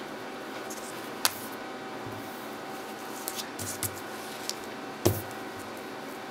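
Quiet room noise with a steady faint hum, under light rustling as crocheted yarn fabric and a metal hook are handled; a sharp click about a second in and a louder one about five seconds in.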